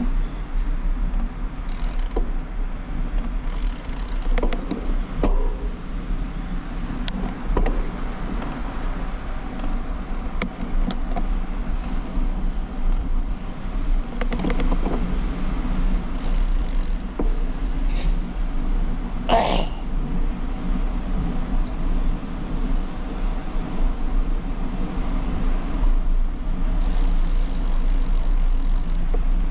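Steady wind rumble on a handlebar-mounted GoPro HERO11 Black's microphone as a bicycle rolls along a paved path, with tyre and road noise and scattered light clicks and rattles from the bike. One brief, sharper sound stands out about 19 seconds in.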